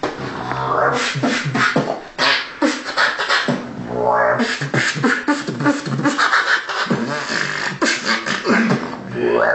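Vocal beatboxing in dubstep style: a dense, fast run of sharp mouth-made clicks and hits with pitched low vocal bass sounds between them.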